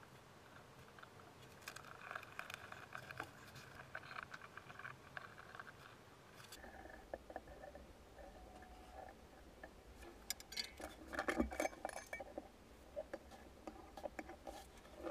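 Faint, irregular clicking and clattering of small hard objects being handled, with a denser flurry of clicks about ten to twelve seconds in.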